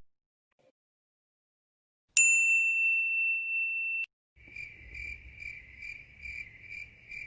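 Stock sound effects: a single bright ding about two seconds in, ringing for about two seconds before cutting off, then high chirping crickets repeating a little over twice a second over a faint low rumble.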